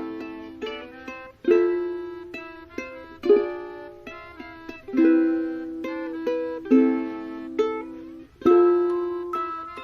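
Background music: an instrumental of plucked notes that start sharply and ring out, with a strong new note about every second and a half.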